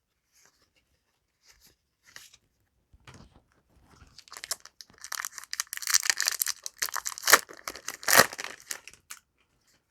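Foil booster pack wrapper of trading cards being torn open and crinkled by hand: a few faint ticks, then about five seconds of dense crackling with two sharp louder rips near the end.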